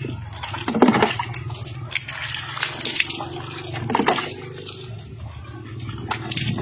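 Water from a plastic bowl being poured over a person's body and splashing off onto the ground, in several separate pours: about a second in, around three and four seconds, and again near the end.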